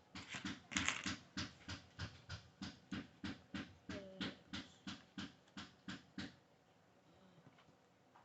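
A quick, even series of sharp clicks or taps, about three or four a second, that stops about six seconds in.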